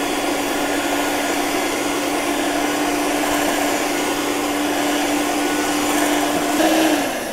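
Electric mixer's motor running steadily at one speed, beating the muffin batter, then winding down near the end.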